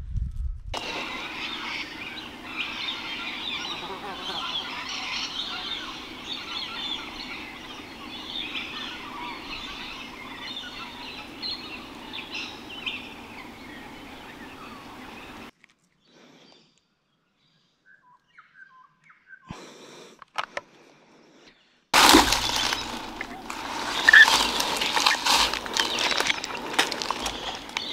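Outdoor bush ambience with birds calling over a steady background. It drops to near silence for several seconds past the middle, then returns louder and rougher, with a short bright call about 24 seconds in.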